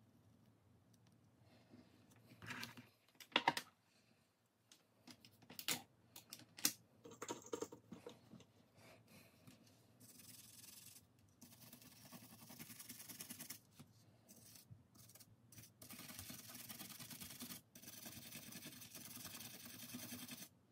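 Clicks and knocks of small hard objects being handled, then four spells of scratchy rubbing, each a second or two long.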